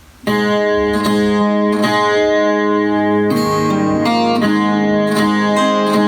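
Chilean guitarrón, a 25-string plucked folk guitar, breaking into an instrumental passage a moment in: plucked, ringing chords and notes with fresh strokes every half-second or so.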